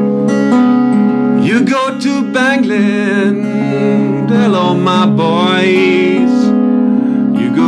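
Acoustic guitar playing a blues accompaniment, joined about a second and a half in by a wavering lead line that bends and slides in pitch.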